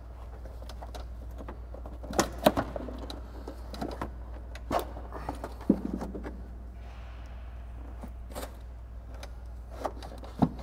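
Plastic knocks, clicks and rubbing from a cold air intake's airbox and intake tube being worked loose and lifted out of an engine bay. The knocks come irregularly, loudest in a cluster about two seconds in.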